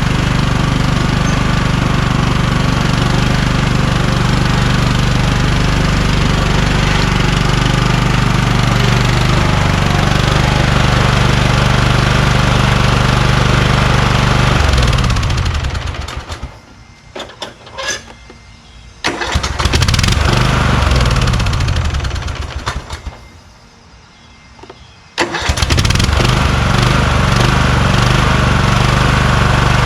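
Kohler Courage engine of a Craftsman lawn tractor running steadily, then winding down and stopping about halfway. After a short quiet with a few clicks it briefly runs again and dies away, then restarts suddenly near the end and runs steadily.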